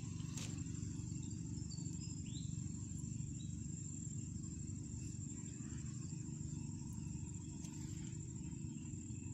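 An insect trilling steadily at a high pitch over a low steady rumble, with a few faint clicks.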